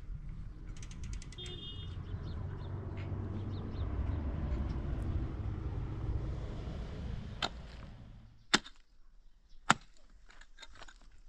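A pickaxe striking stony ground three times, about a second apart, near the end, with small stones clattering after the blows. Before that, a low rumble swells and fades out.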